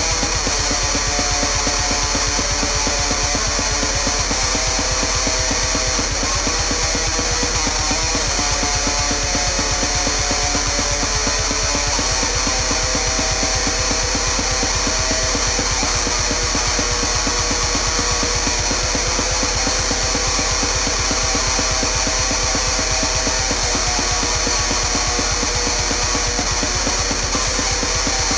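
Heavy metal music with electric guitar over a fast, steady beat, played at a constant loud level.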